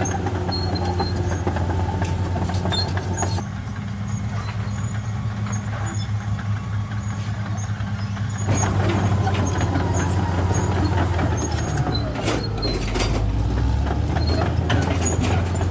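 Caterpillar D6R XL bulldozer working, its diesel engine running steadily under the clatter and clank of its steel tracks. The sound eases off for a few seconds about a third of the way in, then comes back up.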